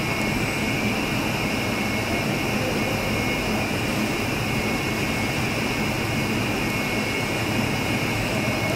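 Steady car-assembly-plant machinery noise: an even rushing sound with a constant low hum and a high steady whine.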